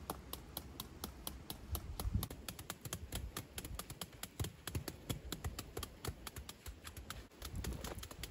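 Rapid, fairly regular light tapping, about five or six sharp clicks a second, with a few duller low knocks underneath.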